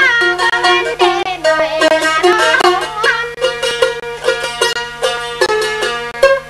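Northern Thai folk music led by a small long-necked plucked lute picked in quick, bright notes, with a melody sliding in pitch over it in the first half.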